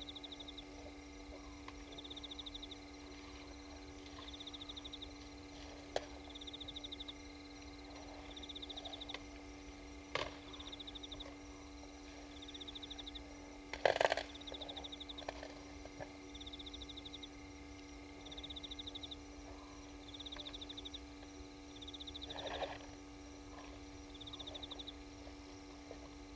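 Night waterhole ambience: a high, pulsed chirping trill from a calling night creature repeats about every second and a half over a steady low hum. A few short sudden noises break in, the loudest about halfway through.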